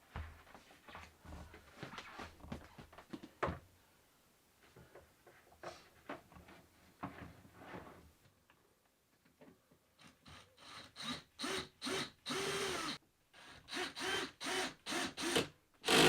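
Knocks and scraping of wooden wardrobe door and hinge parts being handled, then a small power driver running in a string of short bursts, about two a second, with one longer run in the middle of them.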